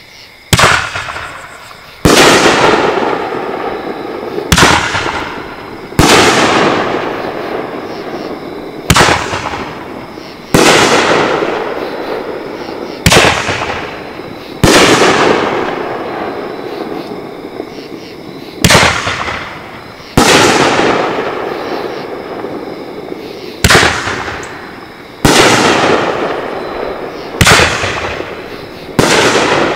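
Great Grizzly Tidal Wave 500-gram firework cake firing its 3-inch tubes one shot at a time. About seven shots: each is a sharp launch report followed about a second and a half later by the shell's break high up, with a long fading tail.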